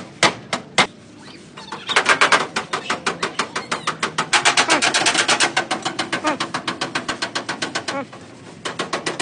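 Rapid, even mechanical tapping at about ten strikes a second, starting about two seconds in after a few separate clicks, breaking off briefly near the end and starting again. A voice is faintly heard under it.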